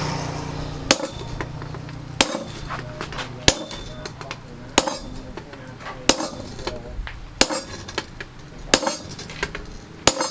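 Hammer blows on steel, eight even strikes about 1.3 seconds apart with lighter taps between, as the chainsaw steel is hammered into a knife.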